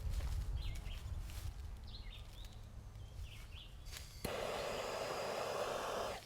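Lighting a firecracker pack's fuse: a steady hiss starts suddenly about four seconds in and cuts off abruptly two seconds later. Birds chirp faintly before it.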